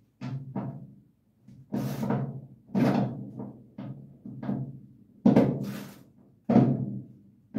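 About ten irregular heavy thumps on a 1951 Chevrolet truck's steel cab door, each with a short hollow ring, the loudest two in the second half. The door is being knocked to shift its top inward on loosened hinge bolts and close the gap.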